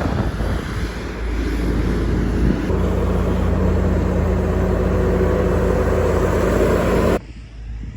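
Farm vehicle engine running steadily, its pitched drone growing firmer about three seconds in and cutting off abruptly near the end.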